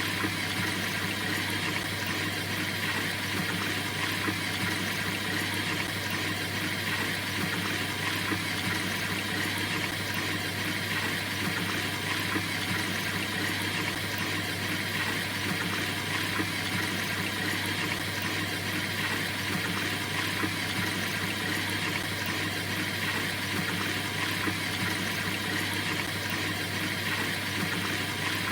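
LG washing machine running: a steady rush of water with a constant low hum.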